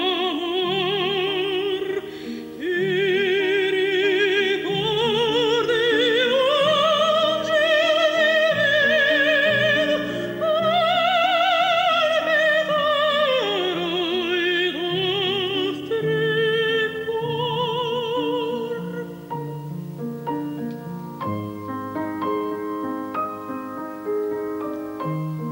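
A woman's operatic voice singing a slow, high, sustained line with wide vibrato over piano accompaniment. The voice falls silent about 19 seconds in, and the piano carries on alone with spaced chords.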